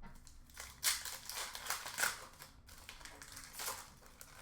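Upper Deck hockey trading cards and their packaging being handled: irregular crisp rustles and flicks, the loudest about one and two seconds in.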